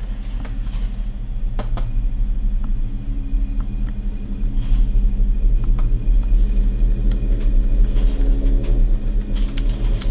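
A low, steady rumbling drone that slowly grows louder, with scattered clicks and ticks over it.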